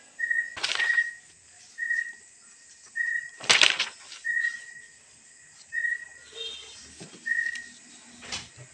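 A short high peep repeating about once a second, with a few rustles and knocks of paper. The loudest is a rustle about three and a half seconds in, as a page of a paper textbook is turned.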